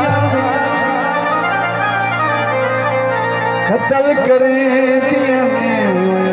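Live folk music with no drums: a reedy, accordion-like instrument plays a melody with sliding pitch bends.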